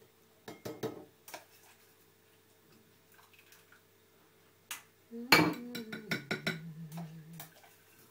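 A metal spoon clinking and scraping in a stainless steel saucepan as food is served onto a plate. There are a few sharp clicks in the first second, then a loud run of clattering from about five seconds in.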